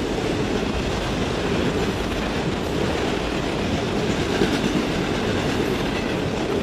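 Freight cars of a CN mixed freight train rolling past at track side: a steady rumble of wheels on rail.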